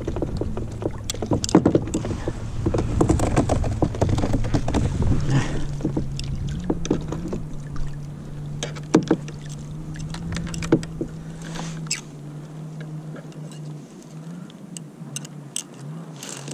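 Close handling sounds on a sit-on-top kayak: irregular clicks and knocks as hands unhook a small fish from a lure and sort tangled fishing line, over a low rumbling noise in the first five seconds. A steady low hum sets in about five seconds in.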